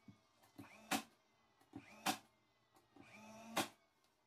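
Cordless nail gun fastening an MDF panel: each time a short motor whir rises in pitch, then the shot lands with a sharp crack. This happens three times, roughly every second and a half.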